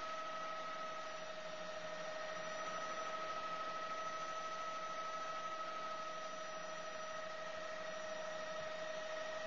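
Helicopter in flight heard from inside the cabin: a steady high whine with overtones over an even hiss of engine and air.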